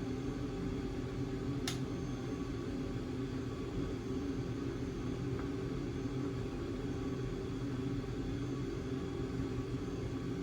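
Steady low mechanical hum of workshop background noise, with a single sharp click a little under two seconds in.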